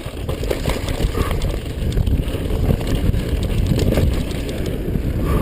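Mountain bike riding down a rough downhill trail: tyres rolling over dirt with the frame and chain rattling in many small knocks, over a steady low rumble of wind on the microphone.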